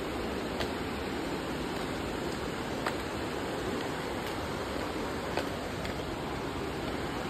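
Steady rushing of a fast river over rocks, an even wash of water noise with a few faint ticks.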